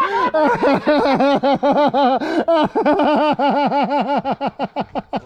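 A man laughing hard: a long unbroken run of rapid pitched 'ha' pulses that quicken near the end.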